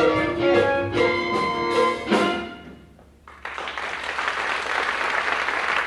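The musical accompaniment of a stage dance number plays in accented rhythmic stabs and ends on a final hit about two seconds in, dying away within a second. Audience applause breaks out about three and a half seconds in.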